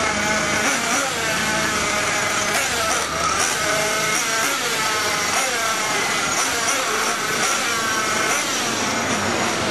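Several 1/8-scale nitro RC buggy engines running at once, their high-pitched whines rising and falling as they rev and back off.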